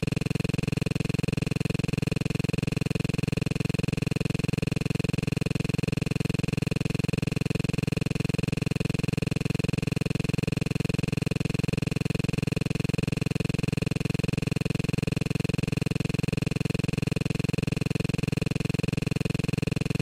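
Steady electronic buzz made of many held tones, with a rapid, even pulse.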